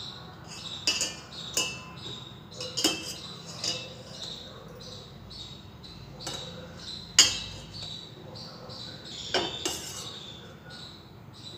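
Steel wire skimmer and spoon clinking and tapping against a stainless steel bowl as a fried bread round is pushed around in sugar syrup: irregular clinks, the loudest a little past the middle.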